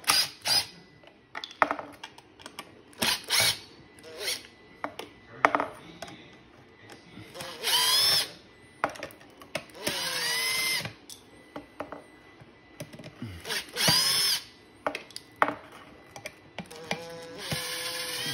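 Cordless drill-driver backing screws out of a plastic leg joint in short trigger bursts, the motor whine rising and falling in pitch with each squeeze and release. Several brief spurts and clicks come first, then about four longer runs of one to two seconds.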